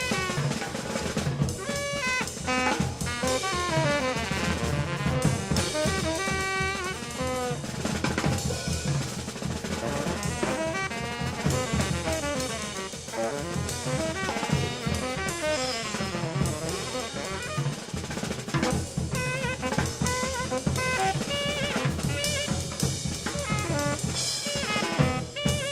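Background music: an up-tempo track with a full drum kit and a melody over it.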